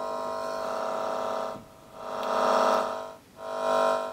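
Casio VL-1 keyboard giving out a steady buzzy electronic tone, the only sound the malfunctioning unit will produce. It holds for about a second and a half, then swells and fades twice as a slide control on the board is moved.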